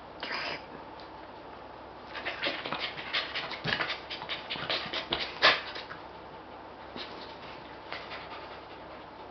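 Small white spitz dog panting, with rustling and scuffing on a bedspread as it rolls and wriggles on its back over the middle few seconds, and one sharper thump about five and a half seconds in.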